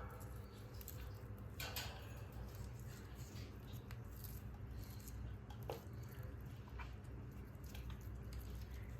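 A pet parrot's small sounds: a brief call about two seconds in, then scattered soft clicks and scratches over a steady low room hum.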